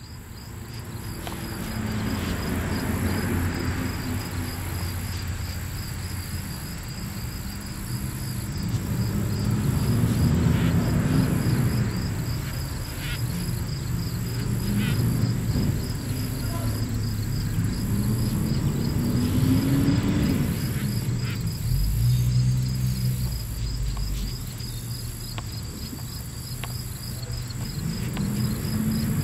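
Low rumble of passing motor vehicles, rising and falling in pitch several times, over steady high insect chirping.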